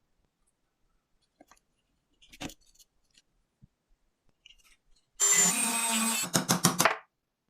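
A small electric power tool runs for about a second with a low hum and a high whine, then is triggered in several quick short bursts. A few faint clicks and a light knock come before it.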